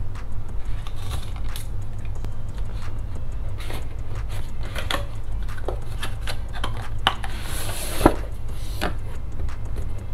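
Cardboard packaging being handled and opened: scattered light taps and clicks, then a short scraping slide of one box out of another about three-quarters of the way through, ending in a sharp knock. A steady low hum runs underneath.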